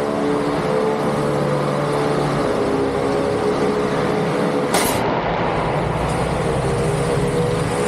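Combat robots' electric motors whining steadily at several pitches that shift now and then, over loud arena noise, with one sharp metallic impact about five seconds in as the robots hit each other.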